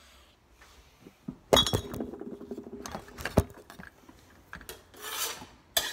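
Kitchenware clinking and knocking at a slow cooker as diced onion is tipped in: one ringing clink about a second and a half in, a sharp knock about two seconds later, then a short scraping rustle and another sharp knock near the end.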